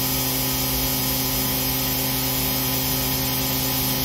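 CNC milling machine spindle running a small ball end mill through a finishing pass in a soft jaw under flood coolant: a steady machine whine made of several constant tones over an even hiss.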